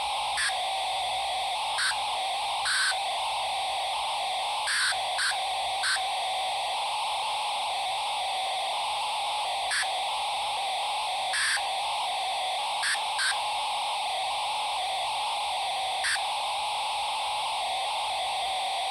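Small speaker of a homemade Wi-Fi-to-sound gadget that turns sniffed Wi-Fi packet data into a sound wave: a steady static hiss like a dial-up modem's data noise. It is broken by about a dozen short, louder blips at irregular intervals, where the device makes random jumps in the wave's amplitude and frequency.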